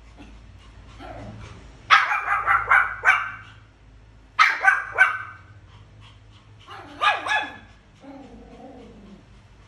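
Pomeranians barking in quick bursts: a run of several sharp barks about two seconds in, another few at about four and a half seconds, two more near seven seconds, then a longer call that falls in pitch.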